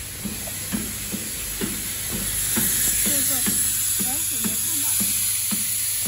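Automatic corner-connector screw assembly machine running, with a steady high hiss and a regular clicking about twice a second as it cycles.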